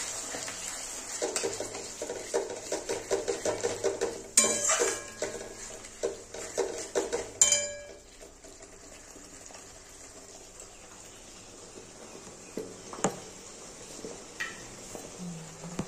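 Spatula stirring and scraping a thick spinach and cashew paste around a metal wok, about two to three strokes a second, with a couple of sharper clinks against the pan. About eight seconds in the stirring stops, leaving faint sizzling of the cooking paste and a few light taps.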